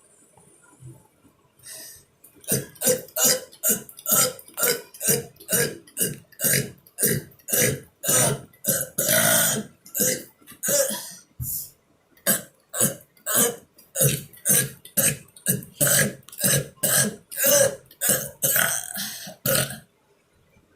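A person burping over and over in quick succession, about two short burps a second, with one longer burp near the middle. The run starts about two seconds in and stops just before the end.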